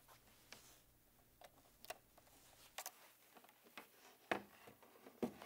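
Faint, scattered handling clicks as a power cable's plug is pushed into a small media player, with a couple of slightly sharper clicks late on.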